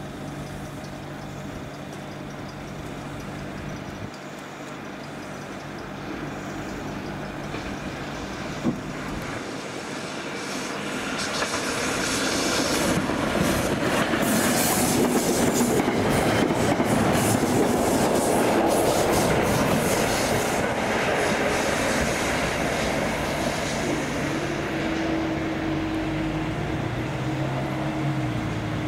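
A train passing over the level crossing. It builds up over several seconds to a loud rush with rapid clattering of wheels over the rail joints, then slowly fades. A steady low hum remains near the end.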